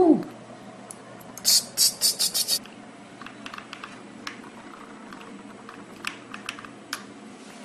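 A quick run of about six short hissing bursts, then a few faint scattered clicks.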